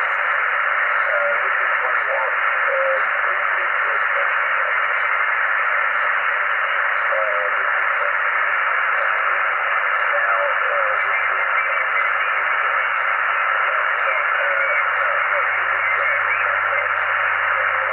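Yaesu FT-857 transceiver receiving 20 m single-sideband through its speaker: a steady hiss of band noise, cut off above and below like a narrow radio channel. Faint, garbled traces of a weak voice come and go beneath it. A low hum runs underneath.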